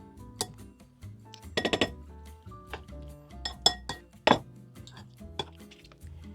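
Kitchen utensils clinking against dishes in a few sharp, irregular knocks, with a quick run of clinks about one and a half seconds in and the loudest single clink past the middle, over background music.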